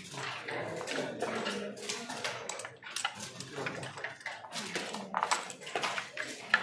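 Backgammon checkers clicking and clacking against the board and each other as they are moved in quick succession, a steady patter of sharp knocks throughout.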